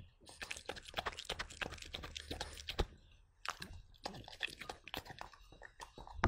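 Dog chewing sweet potato, a fast run of quick bites and jaw clicks with a short pause about three seconds in.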